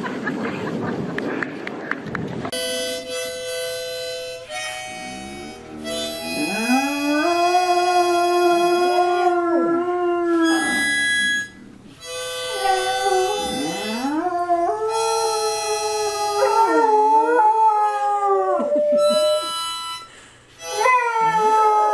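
A harmonica playing held chords while a dog howls along, its long howls gliding up and down in pitch, with short breaks between phrases. The first two seconds or so are a burst of noise before the harmonica starts.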